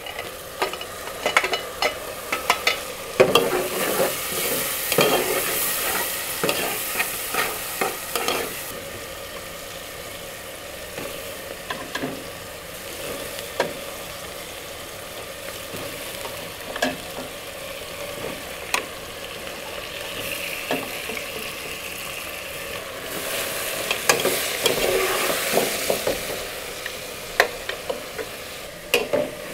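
A metal ladle stirring and scraping through meat pieces in a steel pot, with frequent clinks and knocks against the metal. Two stretches of hissing rise over it, one about three seconds in lasting several seconds and another near the end.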